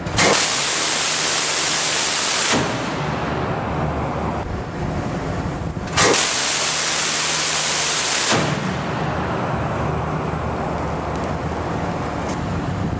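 Phalanx CIWS 20 mm six-barrel Gatling gun firing two long bursts, each a continuous tearing buzz lasting a little over two seconds; the second burst starts about six seconds in. A steady low machinery hum fills the gap between the bursts.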